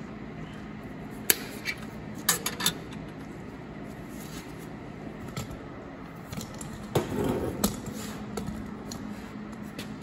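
Sharp metallic clicks and clinks of pliers and a steel brake spring against a tractor's brake housing: a few around two seconds in and more about seven seconds in, over a steady low hum.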